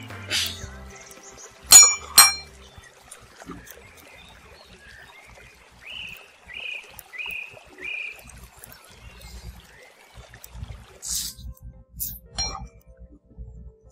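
Two sharp, ringing metallic clinks about half a second apart, like a basting brush or utensil knocking a small metal bowl. Later come four short falling chirps and a few light clicks and taps.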